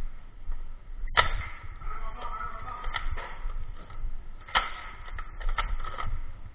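Foam-dart blasters firing: two sharp pops about three and a half seconds apart, with several softer clicks and pops after each, over a low rumble.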